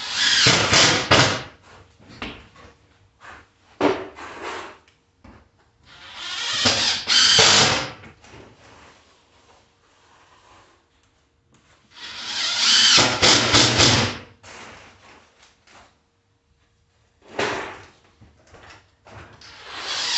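Several separate bursts of scraping and tool noise from floor tiling work, each up to about two seconds long with short quiet gaps between them, as mortar and tiles are worked on the floor.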